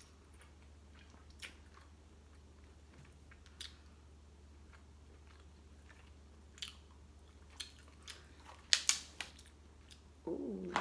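Snow crab shell being cracked and snapped apart by hand: scattered single sharp cracks, then a quick run of louder snaps near the end.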